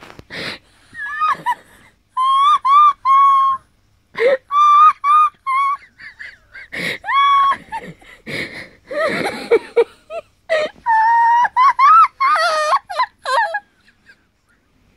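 A woman's high-pitched, squeaky laughter in breathless fits: runs of short rising-and-falling squeals, several in quick succession, broken by wheezing, gasping breaths.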